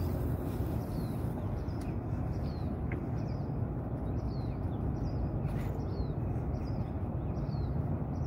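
A small bird repeating short, high chirps that fall in pitch, about one every half second, over a steady low rushing noise.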